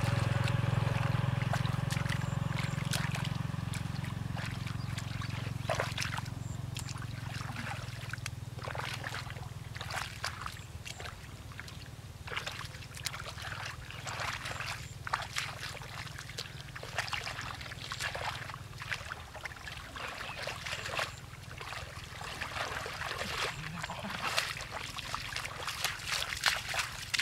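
Muddy water splashing and sloshing in short irregular splashes as hands grope through a shallow ditch for catfish. A low steady drone fades out over the first several seconds.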